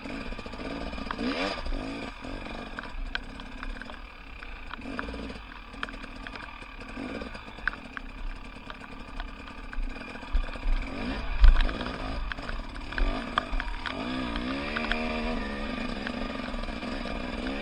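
Off-road enduro motorcycle engine revving up and down repeatedly on a slow, tight trail section, with scattered knocks and clatter, the sharpest one about eleven seconds in.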